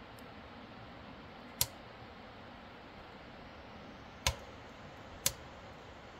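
Wood burning in a tent's wood stove: three sharp pops over a steady hiss.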